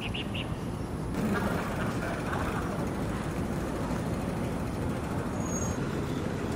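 Outdoor street ambience: a steady rumble of road traffic, growing a little fuller about a second in. There are a few short high chirps right at the start.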